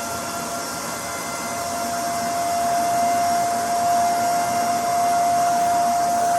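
A small high-speed motor running steadily: a constant whine over an even rushing hiss.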